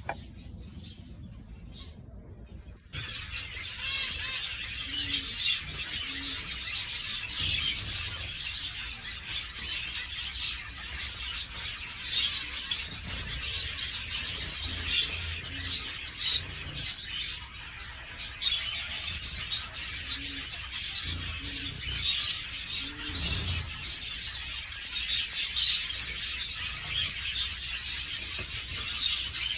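A flock of zebra finches chirping and calling over one another, starting suddenly about three seconds in. Low pigeon coos come through now and then.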